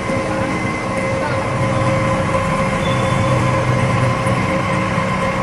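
CNC facing and centering machine cutting the end of a steel train axle: steady machining noise with a constant whine over a low hum.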